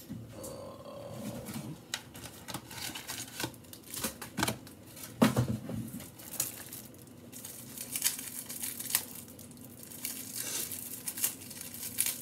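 Crinkling and rustling handling noises with scattered clicks and knocks; the loudest knock comes about five seconds in.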